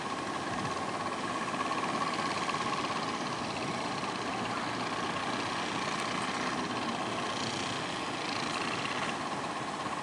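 Outrigger fishing boats' engines running steadily, a constant drone with a high whine, over the wash of breaking surf.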